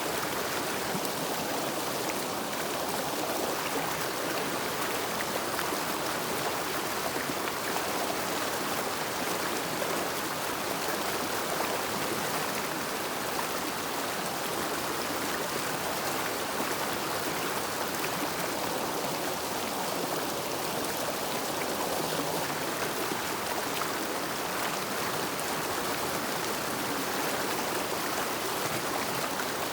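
River water flowing steadily, an even, unbroken rush of water noise.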